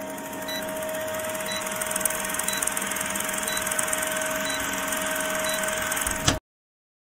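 Old film projector running with a steady whirring clatter and hum, and a faint blip about once a second. It cuts off suddenly about six seconds in.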